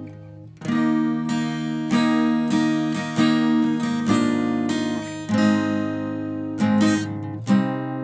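Morris MF-255TS acoustic guitar played solo, picked notes and chords ringing out. A brief lull as the notes die away at the start, then playing resumes about half a second in, with louder chords struck twice in the second half.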